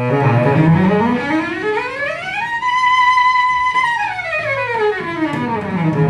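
Cello played with the bow: a fast, even scale climbing step by step from the low register to a high note, which is held for about a second, then running back down to the low starting note.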